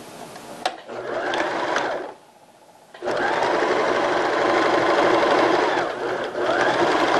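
Domestic electric sewing machine stitching a seam in cotton knit fabric, in two runs: a short run of about a second, a brief stop, then a longer run of about four seconds. The motor speeds up and slows down audibly at each start and stop. A sharp click comes just before the first run.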